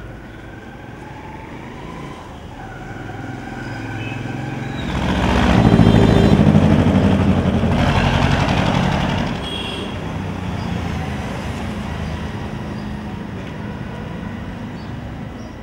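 Street traffic: a motor vehicle passes close by, its engine and road noise swelling about five seconds in, loudest around six seconds, and dropping back after nine seconds to a steady traffic hum.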